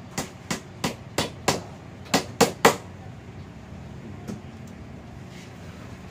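Claw hammer driving a nail into plywood: eight quick, sharp strikes in under three seconds, the last three the loudest. A single faint tap follows about four seconds in.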